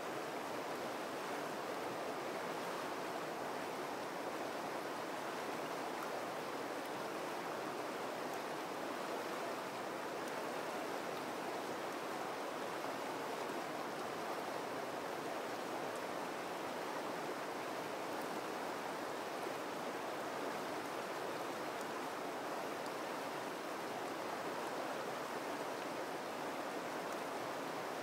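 River rapids, whitewater running over rocks: a steady, unbroken rush of water.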